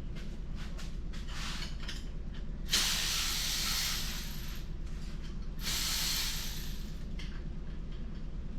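Two hissing bursts of about a second each, the first nearly three seconds in and the second near six seconds, over a steady low hum.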